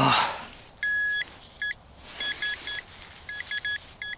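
Rutus Alter 71 metal detector giving target tones as the coil sweeps: one longer beep about a second in, then quick groups of two to four short beeps, all at the same high pitch.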